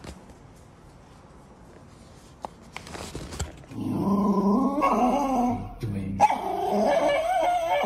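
Small white dog growling, a wavering grumble that rises and falls in pitch and starts about halfway in after a few near-quiet seconds with faint clicks. It breaks off briefly and starts again. It is a warning growl at a hand reaching toward its plate of food.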